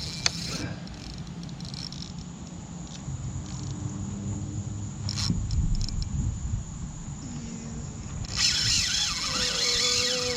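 Low rumble with a few scattered clicks and knocks, then about eight seconds in an insect starts buzzing, a dense high-pitched buzz with a steady lower drone that carries on to the end.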